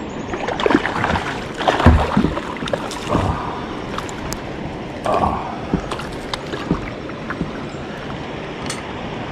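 Knocks and bumps against a kayak's hull, mixed with water splashing and sloshing, in a few louder clusters over a steady wash of water noise.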